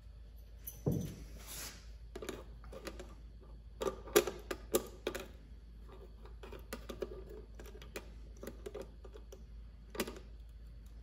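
Small clicks, taps and a brief scrape of metal parts being handled at a mini lathe's control panel as a replacement speed potentiometer is tightened in place. A run of sharp clicks comes near the middle, with one more click near the end.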